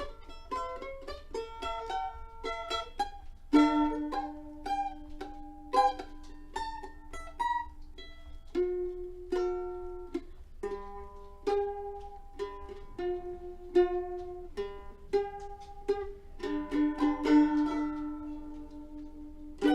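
Background music played on a plucked-string instrument: a picked melody of quick single notes over held lower notes.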